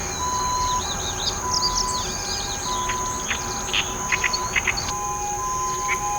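Male meadow bunting singing a quick phrase of varied chirping notes, followed by a few short sharp notes, over a steady high-pitched insect whine and a low tone that pulses on and off about every half second.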